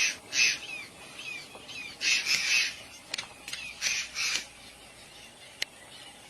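A bird giving harsh squawking calls in several bursts, with short falling call notes between them and a few sharp clicks.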